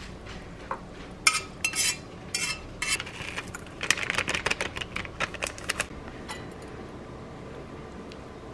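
Metal chopsticks clinking and scraping against a stainless-steel saucepan and a ceramic bowl as stir-fried instant noodles are pushed out of the pot: a run of quick, sharp clinks that comes thickest about four to six seconds in and then stops.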